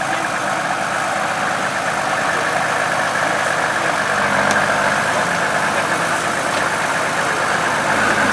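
Mercedes G-Class off-road vehicle's engine running steadily at low revs, growing slightly louder as the vehicle creeps forward.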